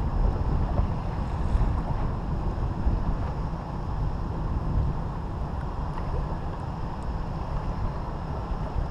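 Wind buffeting the microphone, a steady low rumble that rises and falls with the gusts.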